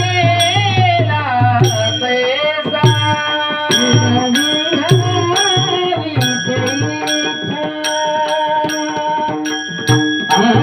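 Varkari kirtan music: a man's voice singing a devotional melody over held instrumental notes, kept in time by regular small-cymbal strikes and drum beats.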